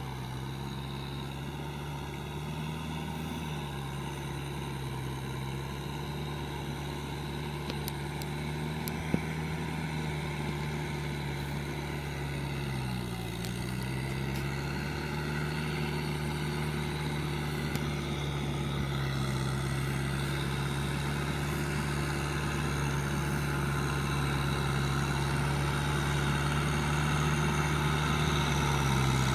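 Kubota M6040SU tractor's diesel engine running steadily under load as it tills a flooded rice paddy, growing louder as it comes closer. The engine speed dips briefly about halfway through, and there is one sharp tick about nine seconds in.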